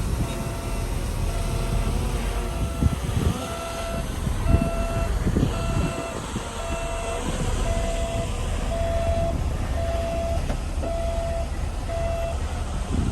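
Reversing alarm on heavy earthmoving equipment, a steady beep repeating about once a second that stops shortly before the end, over the low rumble of a diesel engine with a few clanks.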